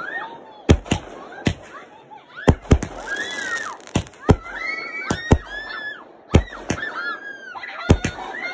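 Consumer aerial firework shells bursting in quick succession, about a dozen sharp bangs with some crackle. Between the bangs come high shrieks and whoops from excited onlookers that rise and fall.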